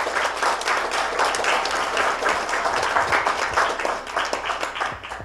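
A congregation applauding, many hands clapping in a dense patter that dies away near the end.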